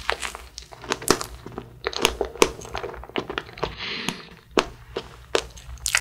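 Close-miked mouth sounds of biting into and chewing a soft strawberry cream sponge cake (a convenience-store strawberry 'omelette'). They come as irregular wet clicks and smacks.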